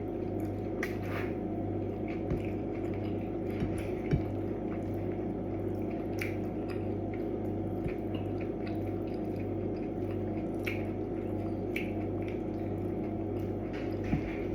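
Eating sounds at a meal: scattered soft clicks and wet, squishy chewing and utensil noises over a steady low background hum.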